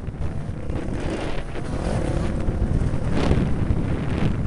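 Motocross bike engine running as it rides the track, its pitch going up and down, under heavy wind rumble on the microphone.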